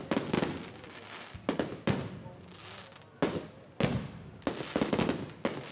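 Aerial fireworks shells bursting overhead: an uneven string of sharp bangs, about two a second and often in close pairs, each dying away quickly.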